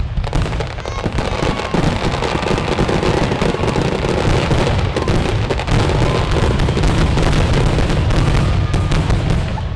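Aerial fireworks finale: a dense, continuous barrage of launches and shell bursts, rapid overlapping bangs and crackle over a low rumble, with no let-up.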